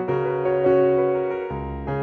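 Background music on a piano-like keyboard: sustained chords changing every half second to a second.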